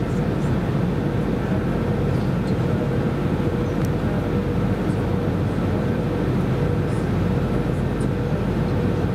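Steady in-flight cabin noise of an Airbus A320-232 airliner: an even rush of airflow and engine noise that does not change, with a faint steady hum.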